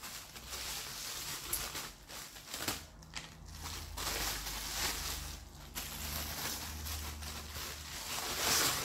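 Plastic bubble wrap crinkling and rustling as it is handled and pulled from around a bow riser.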